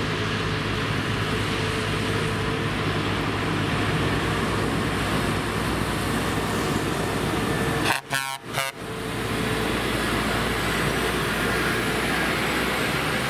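Semi-truck's diesel engine running steadily as the tractor-trailer drives slowly past. There is a brief dropout about eight seconds in.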